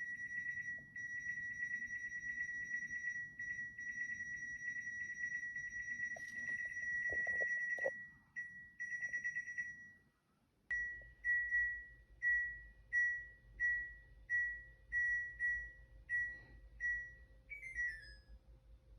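High-pitched electronic alarm tone. It sounds steadily with a fast flutter for about eight seconds and stops, then after a short gap gives a run of about ten short beeps, about one and a half per second, that ends in a quick falling chirp.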